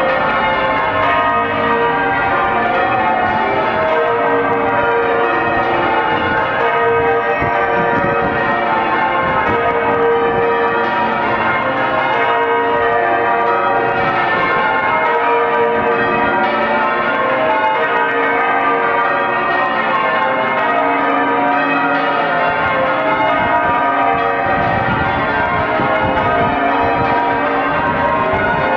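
The church bells of St Paul's Cathedral ringing a continuous peal, many bells struck one after another in a steady, unbroken stream of overlapping tones.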